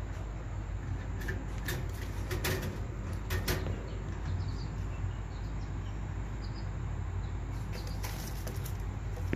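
Caged pigeons moving about, with a few short bursts of wing flapping in the first half and again near the end, over a steady low hum.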